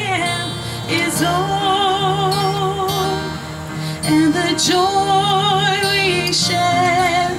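A woman singing a slow gospel hymn in long held notes with vibrato, accompanied by strummed acoustic guitar.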